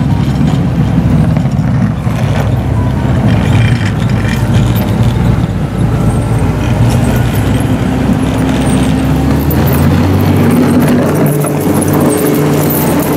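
Motor grader's diesel engine running under load as it plows a snow-covered road, a steady low drone. About ten seconds in the low rumble thins and a steadier hum takes over.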